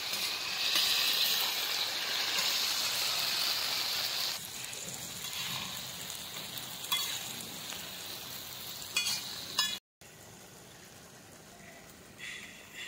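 Food sizzling as it fries in a pan, loudest for the first four seconds and then quieter, with a few sharp clicks of a utensil against the pan about two-thirds of the way in. The sound drops out for a moment near the end.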